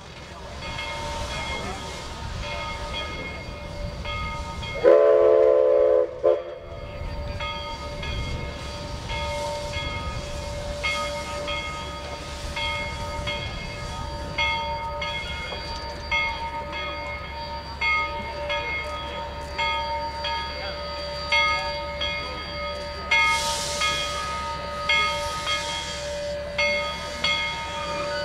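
Steam-powered railroad pile driver running: steady machine tones with a regular repeating beat. A loud steam whistle blast sounds about five seconds in and lasts over a second, and a burst of steam hiss comes a little before the end.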